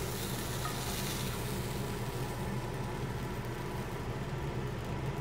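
Chicken breast sizzling in a lightly oiled pan, nearly dry and browned in spots at the end of cooking; the hiss thins out in its upper range about halfway through.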